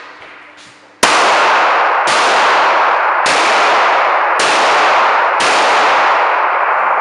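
Pistol shots fired one after another in an indoor shooting range: six loud shots roughly a second apart, starting about a second in. Each rings on in the range's echo, so the sound barely drops between them.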